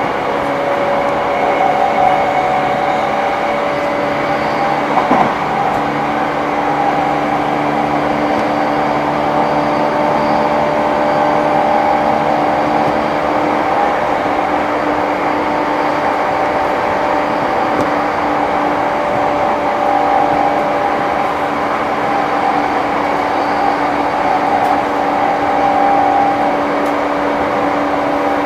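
Running noise inside a JR East E235-1000 series commuter train at speed: a steady rumble of wheels on rail, with steady humming tones from the running gear.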